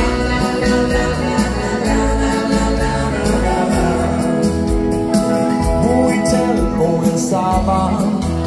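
A live dance band playing a song with a steady beat, in an instrumental stretch between sung verses, with a lead melody line wavering over the accompaniment in the second half.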